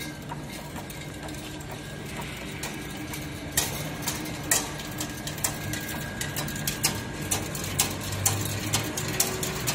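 Chain link fence weaving machine running: a steady low motor hum with a faint whine, and sharp mechanical clicks that are sparse at first and then come about two or three a second from about three and a half seconds in.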